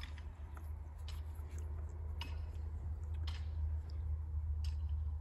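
Plastic hose-thread fittings being turned backwards by hand to line up the threads: faint, irregular small ticks and clicks of the threads and the handled parts, over a steady low hum.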